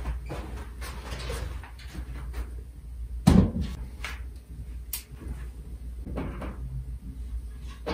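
A large whiteboard panel being handled and propped against a door: scattered knocks and scrapes, with one loud thump a little past three seconds in and a sharp click about five seconds in.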